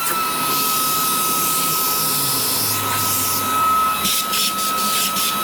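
Electric drill running at steady speed with a high whine, drilling out a pop rivet. A few rattling clicks come from the bit near the end.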